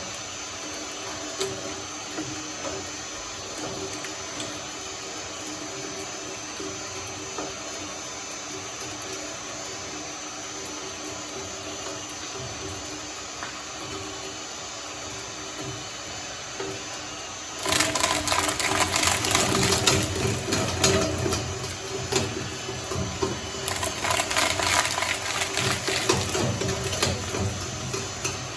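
Shredder running with a steady hum, then, about 18 seconds in, loud crunching as slime goes through the blades, easing off briefly and starting again.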